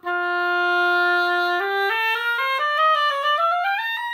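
Oboe played on a freshly clipped cane reed, testing the reed: one long held low note, then a scale climbing step by step, about an octave and a half, that turns back down near the end. The player hears a little more depth and sweetness in the tone from the clip.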